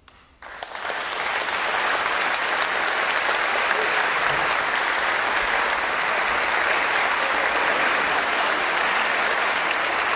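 Audience applause breaking out about half a second in and quickly swelling to steady, loud clapping from a large crowd.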